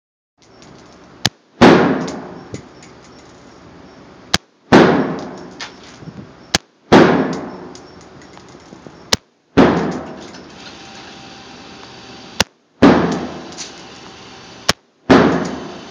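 Colt AR-15 rifle in .223 firing single aimed shots: six loud reports about two to three seconds apart, each with a ringing tail that fades over a second or so.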